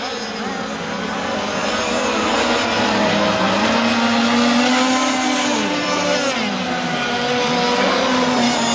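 Several 26–35cc two-stroke petrol engines of radio-controlled racing boats running at high revs together, an overlapping whine whose pitches swing up and down as the boats race around the circuit.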